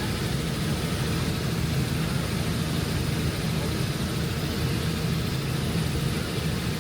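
Helicopter in flight: a steady drone of engine and rotor that does not rise or fall.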